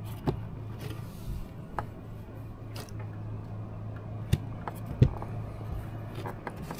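Scattered knocks, taps and scuffs of a man's knees, hands and shoes on an Airstream travel trailer's aluminium roof as he climbs up and kneels, over a steady low hum. The sharpest knock comes about five seconds in.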